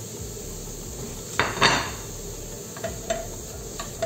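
A spatula stirring diced chicken and vegetables in a nonstick pan cooked without oil. There is one loud scrape about a second and a half in, then a few light clicks of the spatula against the pan near the end.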